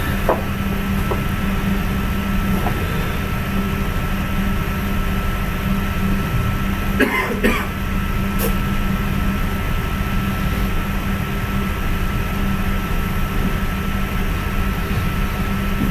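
Steady background hum and hiss of a recording setup, with a thin constant whine above it. Two short sharp noises come close together about seven seconds in.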